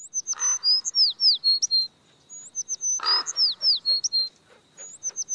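A songbird singing a phrase of high whistles and quick downslurred notes. The same phrase repeats almost identically about every two and a half seconds.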